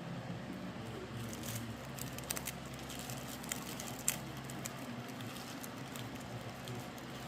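Crisp, extra-fried lumpia shell crunching and crackling in a scattering of sharp cracks as it is broken into, over a steady low hum.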